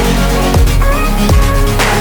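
Electronic dance music with heavy sustained bass, a steady drum beat and synth tones.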